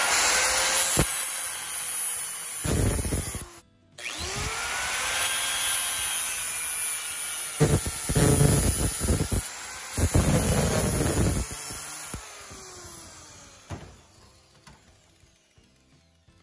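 Angle grinder with a thin cut-off disc spinning up and cutting a groove around a rusty steel driveshaft tube. It stops briefly and restarts around four seconds in, with louder grinding whenever the disc bites the metal. It is switched off about twelve seconds in and winds down to quiet.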